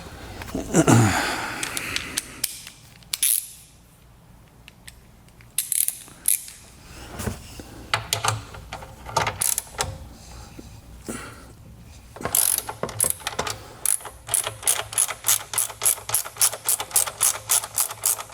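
Hand ratchet working a 13 mm bolt on a car battery hold-down bracket, clicking in short bursts and then in a steady run of about four clicks a second over the last several seconds. A brief, louder sliding sound comes about a second in.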